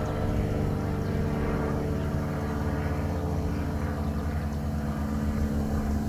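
ASC T-128 electronic tornado siren sounding its steady alert tone for a weekly test: one held tone with several overtones.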